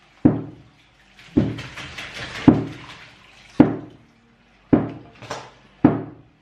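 Tap water running and splashing into a stainless steel sink as meat is rinsed by hand in a bowl. Over it, sharp knocks come evenly about once a second.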